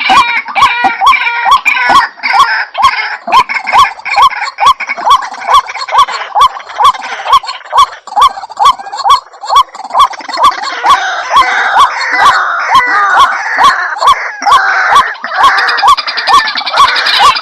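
White-breasted waterhen calling as a bird-lure recording: loud, evenly repeated short notes about three a second, with a second layer of overlapping calls that thins out in the middle and builds up again toward the end.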